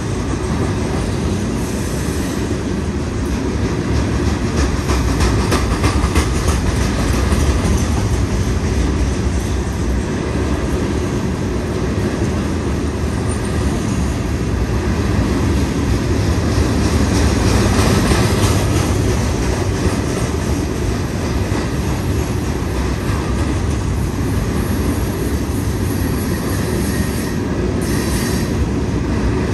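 Long freight train of open-top stone hopper cars rolling past: a steady rumble and clatter of steel wheels on the rails at an even level.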